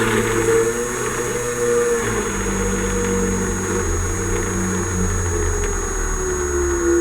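Small electric hobby drill running as it bores a hole through a plastic model part, a steady motor whine that wavers slightly in pitch as the bit bites.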